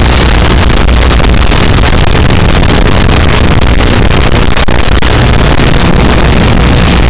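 Small FPV quadcopter in flight: its motors as a loud, harsh, distorted buzz, with a low steady hum underneath.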